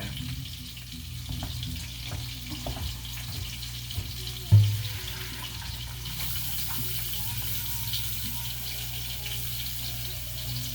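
Water running in a kitchen sink, the hiss growing stronger about six seconds in, over a steady low hum. There is a sharp clunk about four and a half seconds in.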